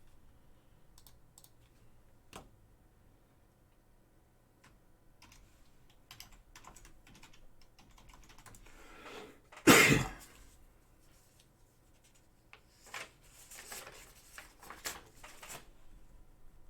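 Light, scattered computer keyboard typing and clicks, with one loud short burst of noise about ten seconds in.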